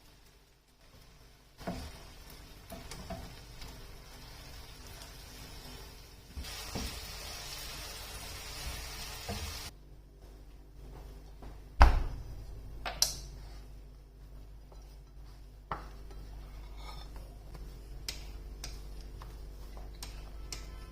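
Food sizzling in a pan, the hiss steady and then louder for a few seconds before it drops away. A metal utensil then knocks against the pan several times, the first knock the loudest.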